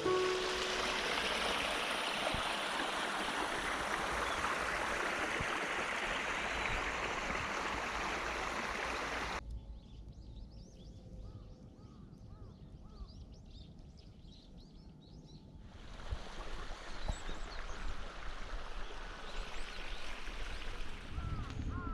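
Rushing water of a stream for about nine seconds, then an abrupt cut to a quieter outdoor stretch with birds calling. About six seconds later a steady rush returns, with more bird calls over it.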